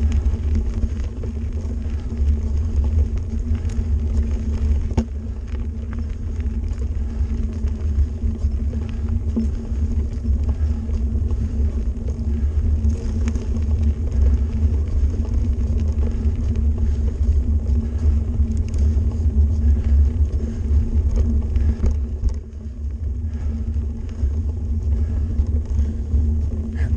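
Mountain bike rolling along a gravel forest road, heard through a bike-mounted action camera: a steady low rumble of wind and vibration on the microphone, with tyre noise and scattered clicks of gravel. The rumble eases for a moment about 22 seconds in.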